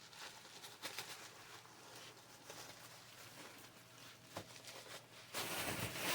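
Packing material being handled while laptop screens are unwrapped: faint scattered rustles and clicks, then a louder crinkling rustle starting about five seconds in.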